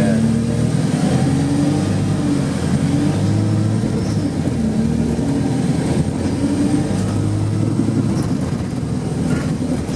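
Wright StreetLite single-deck bus's diesel engine running as the bus drives, heard on board, with the engine note rising and falling as it pulls through the gears.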